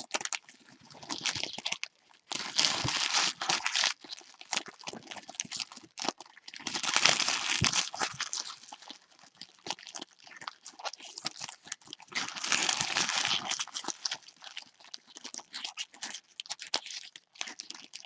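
Foil trading-card pack wrappers being torn open and crinkled by hand, with the cards being handled, in several bursts of crackling with short pauses between them.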